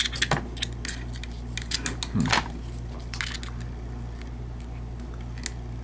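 Light metallic clicks and scrapes of a slimline half-diamond lock pick and tension wrench working in the keyway of a Master combination padlock, busiest in the first three seconds and sparser after, over a steady low hum.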